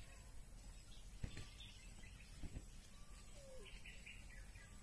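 Quiet outdoor ambience with faint bird chirps, including a quick run of high chirps near the end. Two soft knocks come a little over a second apart.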